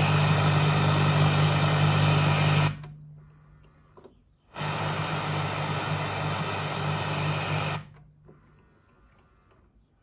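Tuning motor inside a Grundig Satellit 650 shortwave radio running as it drives the dial pointer in automatic frequency tuning, in two spells of about three seconds each, stopping about 2.7 s in and again near the end. The motor sounds normal, a sign that the auto-tuning drive works.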